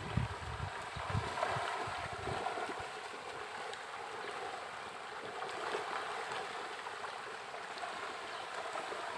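Pond water lapping and gurgling at the surface where fish are swirling and rising, a steady wash of water noise. Wind buffets the microphone in the first two seconds.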